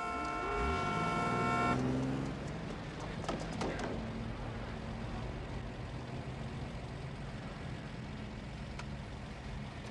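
A car horn blares for about two seconds, then street traffic with a car engine idling as a steady low hum.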